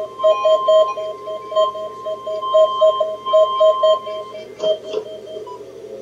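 Weather radio alarm going off for a weekly test: a rapid beeping of about four to five beeps a second over a steady higher alert tone. The steady tone cuts off about four seconds in, the beeping stops soon after, and a few clicks follow near the end.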